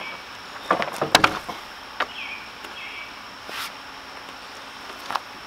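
A plywood panel knocking and clattering against plastic sawhorses as it is lifted off and stood on edge: a quick cluster of knocks about a second in, then single knocks spaced out after. A steady high insect hum runs underneath.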